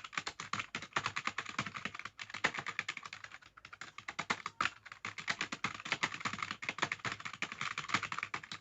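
Fast, continuous typing on a computer keyboard: a rapid, even run of keystrokes, many per second, broken only by two brief pauses, about two and three and a half seconds in.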